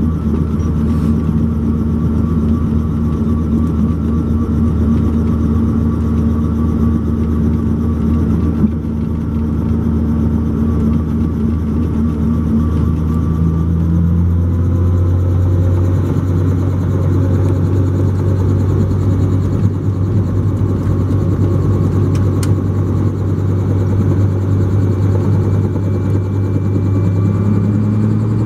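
Helicopter engine and main rotor running on the ground, a steady drone whose pitch steps up about halfway through and starts rising again near the end as the rotor speeds up.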